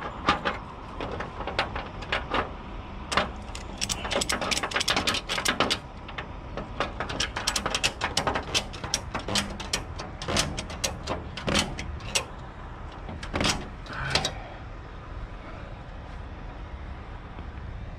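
Runs of sharp metal clicks and clanks from a wheel strap being hooked and tightened on a car hauler's aluminum deck, stopping about fourteen seconds in.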